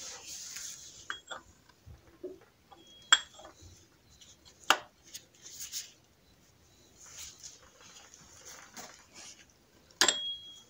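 Metal tools clinking: an aluminium cup-type oil filter wrench and a socket handle knocking and ringing as they are fitted onto a car's oil filter to loosen it, with three sharp metallic clinks, about three seconds in, near the middle and near the end, and gloved-hand rustling between.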